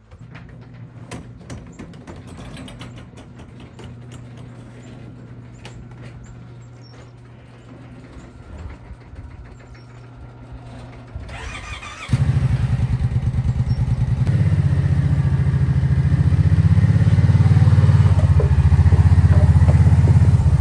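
Kawasaki Brute Force ATV engine running, with clicking and rattling as the garage door goes up. About twelve seconds in it becomes much louder and pulses as it is throttled and driven out.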